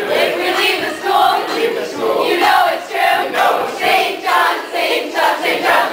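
A group of teenage voices chanting a rap together in unison, in a loud, rhythmic delivery with the echo of a large room.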